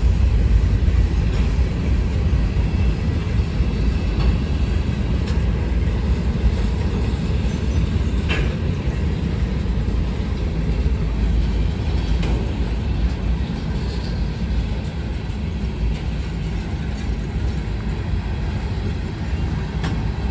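The tail end of a freight train rolling past on the rails: boxcars, a centerbeam flatcar and tank cars give a steady low rumble of wheels and trucks, with a few faint clicks and a brief higher squeal about eight seconds in. The rumble eases slightly toward the end.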